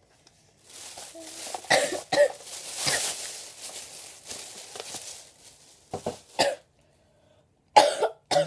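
Thin plastic shopping bags rustling and crinkling as they are handled for several seconds, then a person coughing a few times into her fist near the end.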